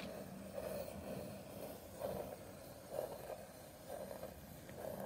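Pencil drawing on paper: faint scratchy strokes about once a second as a curving shape is sketched.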